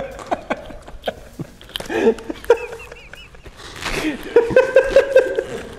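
Men laughing, with a run of short, evenly pulsed laughs in the second half, and a few light clicks and knocks.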